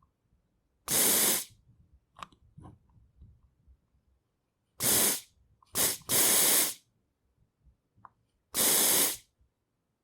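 Compressed aerosol deodorant can spraying in short bursts: five hisses, four of about half a second and one brief puff just before the fourth, with faint clicks of the can and nozzle between them.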